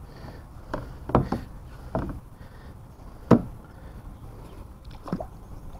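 A few sharp knocks and taps against a kayak, one much louder a little past halfway, over a low steady rumble.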